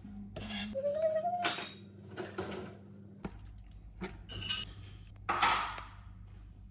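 Kitchen utensils clinking and knocking: metal tongs against a plastic tub of kimchi and a stainless steel mixing bowl, with a short rising squeak about a second in.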